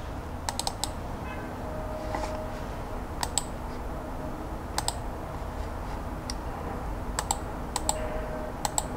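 Keys tapped on a laptop keyboard in small clusters of two or three clicks, a few seconds apart, over a steady low hum. Twice a faint short steady tone sounds, about two seconds in and near the end.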